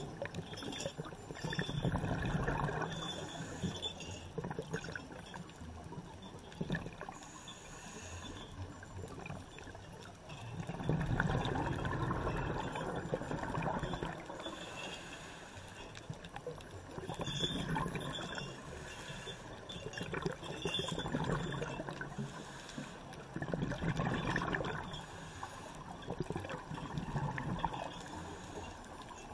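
Scuba exhaust bubbles rushing and gurgling underwater, swelling in bursts every few seconds with each exhalation through a regulator, heard through an underwater camera housing.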